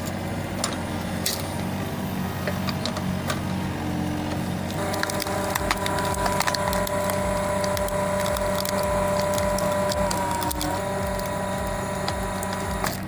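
A wood-processing machine running and working through wood, with many sharp cracks and splintering. A steady motor whine joins about five seconds in and drops away about five seconds later.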